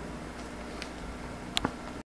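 Quiet workshop room tone with a low steady hum and hiss, broken by a faint tick a little before the middle and a sharper click near the end; the sound then cuts off abruptly.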